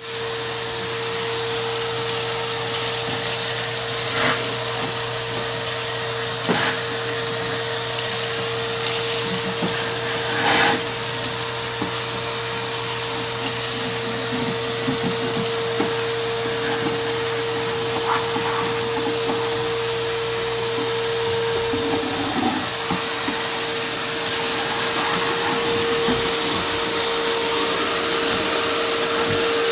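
Shop vacuum running steadily with a constant hum and hiss as its hose sucks up dead German roaches and droppings from cabinet shelves. There are a few sharp clicks and rattles as bits of debris are pulled into the hose.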